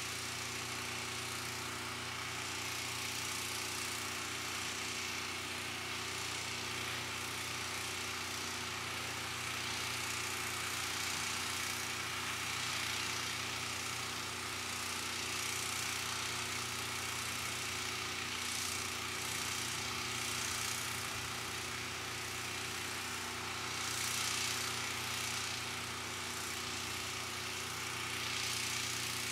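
Steady mechanical hum with several fixed tones under an even hiss, with a few soft swells of hiss in the second half.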